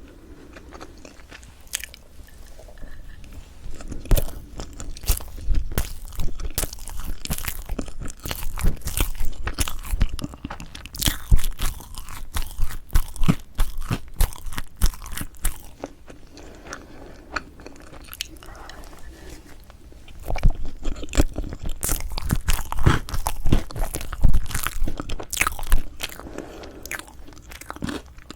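Close-miked chewing and biting of strawberry chocolate cream cake, a quick run of sharp mouth clicks and smacks. It comes in two busy stretches with quieter chewing between them.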